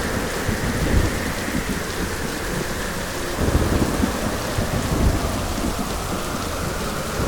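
Heavy rain falling steadily, with low rumbles of thunder swelling now and then.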